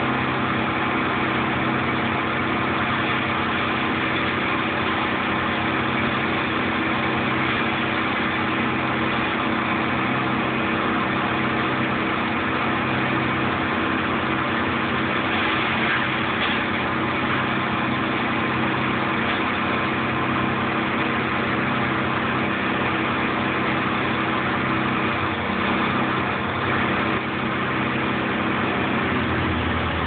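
Engine of a tow-behind wood chipper running steadily, its pitch shifting near the end.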